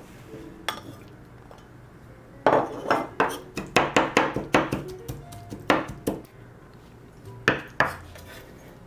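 Chinese cleaver chopping chili bean paste on a wooden cutting board: a run of quick, sharp knocks of the blade on the board, about three or four a second for several seconds, with a single knock before and a couple more near the end.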